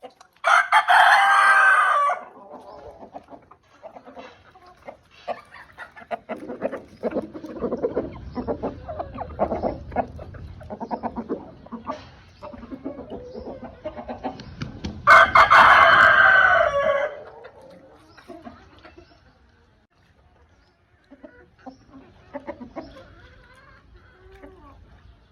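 A rooster crowing twice, each crow lasting about two seconds, once right at the start and again about fifteen seconds in, with chickens clucking in between.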